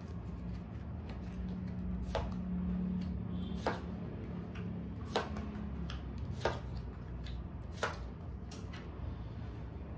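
Tarot cards being laid down one at a time on a cloth-covered table, five sharp taps about a second and a half apart, over a low steady hum.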